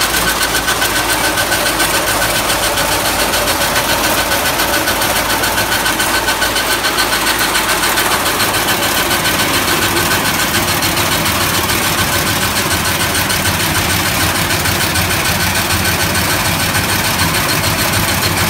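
Massey Ferguson 1035 DI tractor's three-cylinder diesel engine running steadily, with a fast, even mechanical clatter.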